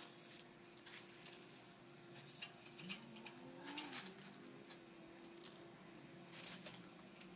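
Quiet room tone with a faint steady hum and a few soft scattered clicks and rustles of handling under the hood. About six and a half seconds in, a brief louder scrape as the engine oil dipstick is drawn out of its tube.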